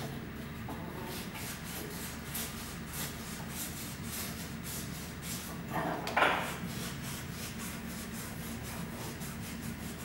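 A hand tool rubbing against a workpiece at a jeweller's bench, about three even strokes a second over a low steady hum. There is one brief, louder scrape about six seconds in.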